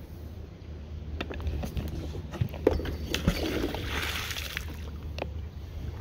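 A fishing magnet on a rope is thrown and splashes into the river about four seconds in, after a few sharp knocks and clinks as it swings on its carabiner. A steady low rumble runs underneath.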